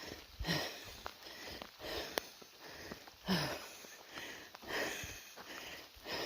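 Heavy breathing of a person out of breath from hiking, close to the microphone, with a loud breath about every second and a half.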